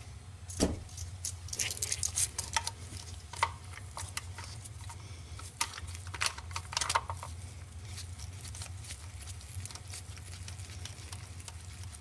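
Light clicks and clinks of a small socket and bolts being handled and fitted by hand, scattered and irregular, over a steady low hum.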